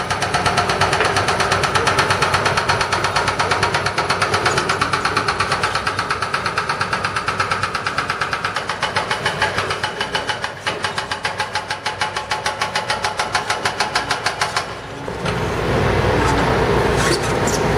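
Excavator-mounted hydraulic breakers pounding concrete in a rapid, steady hammering of several blows a second, over running diesel engines. About fifteen seconds in, the pounding drops out briefly and gives way to a deeper, heavier hammering.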